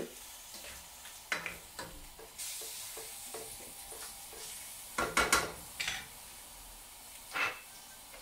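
Raw chicken breast pieces sizzling in olive oil in a stainless steel saucepan, stirred with a wooden spoon that knocks and scrapes against the pan. There is a cluster of louder knocks about five seconds in and a single knock near the end.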